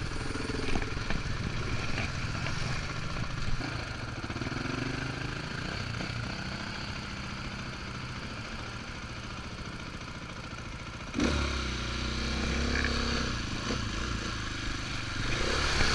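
KTM 450 four-stroke single-cylinder trail bike engine running at low, steady throttle, then suddenly louder about eleven seconds in and holding the higher level.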